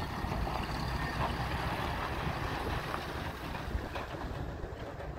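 A 1983 GMC 6500 grain truck's gasoline engine running as the truck drives off, a steady low rumble that grows fainter as it moves away.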